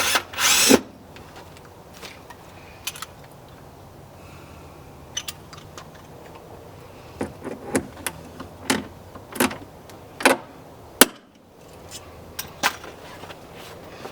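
A short burst of drilling through the caravan's checker plate at the start, then a run of clicks and knocks as a press stud is fitted and riveted on with a hand rivet gun, the loudest a sharp snap about eleven seconds in.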